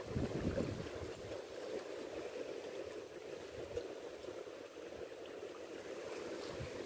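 Small sea waves washing against the rocks of a rocky shore, a steady wash. Wind buffets the microphone in the first second and again briefly near the end.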